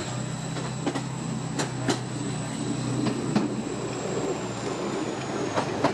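A train running slowly along jointed track, heard from on board: a steady low hum with a few irregular wheel clicks as it crosses rail joints and pointwork.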